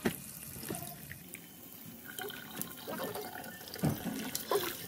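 Tap water running and splashing into a plastic bowl of live crabs in a stainless-steel sink, with a few sharp knocks and clatters, the loudest at the start and about four seconds in.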